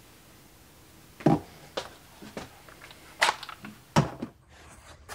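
A few separate short knocks and thuds, four or five over about three seconds, then the background drops away.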